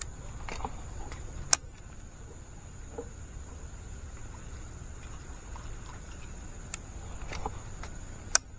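Sharp clicks and light knocks from a baitcasting rod and reel being handled aboard a wooden canoe: two loud clicks, about a second and a half in and near the end, with fainter ones between. A steady high insect drone runs underneath.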